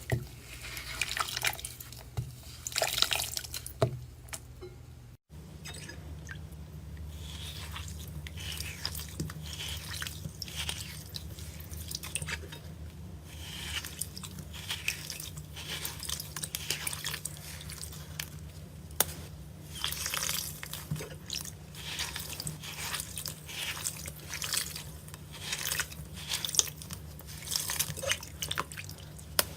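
Slime being squeezed and worked by hand: a dense, irregular run of wet squishes, pops and crackles, over a steady low hum. A brief drop-out about five seconds in.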